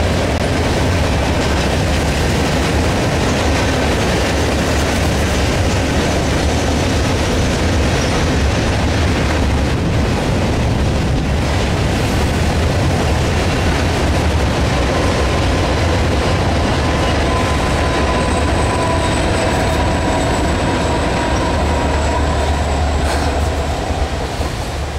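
Steel gondola cars of a freight train rolling past, with a steady heavy rumble and the clatter of wheels over the rail. About halfway through, thin high wheel squeals join in.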